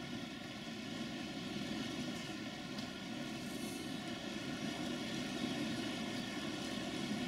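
Steady heavy rain, a continuous even noise with no distinct thunderclap.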